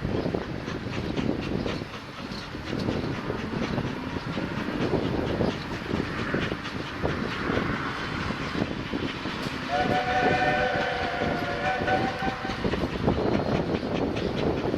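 Class 24 2-8-4 steam locomotive hauling a train of wagons: a steady rumble with irregular clanking and clicking. About ten seconds in, a whistle sounds for nearly three seconds.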